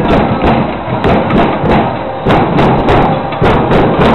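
Rugby stadium crowd in the stands: a loud, continuous din of cheering and chanting, cut through by many sharp percussive hits a few times a second.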